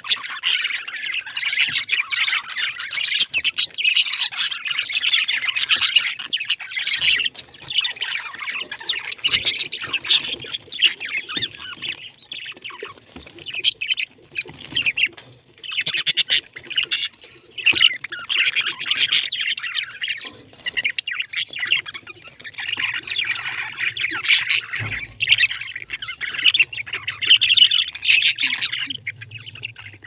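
A flock of budgerigars chattering and chirping continuously in an aviary, many birds calling at once.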